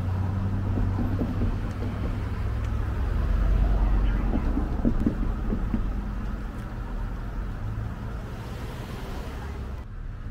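Outdoor traffic ambience: a steady low hum of vehicle engines with road noise. The sound changes abruptly at a cut near the end.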